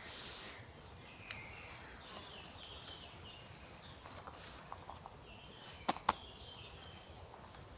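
Faint woodland ambience with scattered short, high chirps from small wild creatures. A single sharp click comes about a second in, and a louder pair of clicks about six seconds in.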